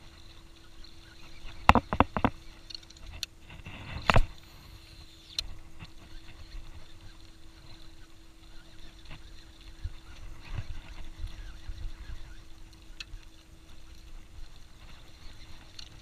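Handling noise from a baitcasting rod and reel aboard a small boat: a quick cluster of sharp clicks and knocks about two seconds in, a louder knock about four seconds in, then scattered light ticks over a faint steady hum.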